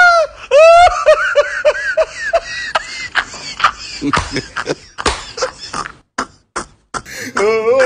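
A loud vocal cry, then a rapid run of short laughing notes, then a scatter of sharp clicks and knocks.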